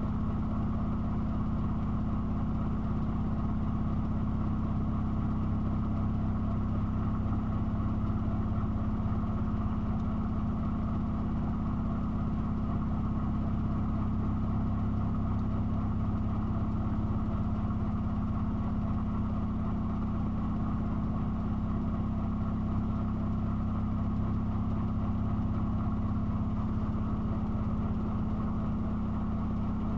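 Miele washing machine with its drum spinning at a constant speed during the first intermediate spin of a 90 °C boil wash: a steady motor hum over a low rumble, unchanging throughout.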